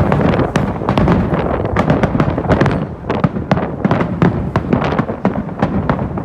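Fireworks bursting in quick succession, many sharp bangs and crackles a second, with strong wind buffeting the microphone.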